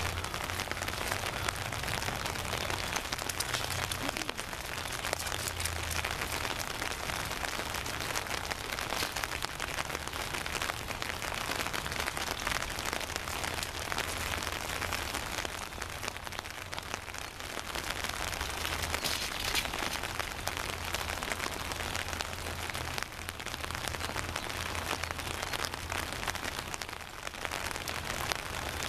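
Steady rain, with many small drop ticks and a low hum underneath.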